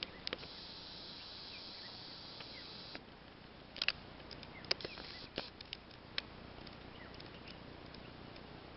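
Quiet dry-bush ambience: a steady high hiss that cuts off suddenly about three seconds in, faint short chirps, and scattered sharp clicks and crackles between about four and six seconds in.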